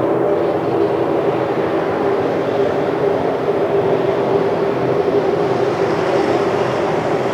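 A loud, steady droning hum, a dense cluster of low tones over a rushing haze, unchanging throughout. It is presented as the unexplained 'hum' heard from the sky, a sound likened to thunder with no storm.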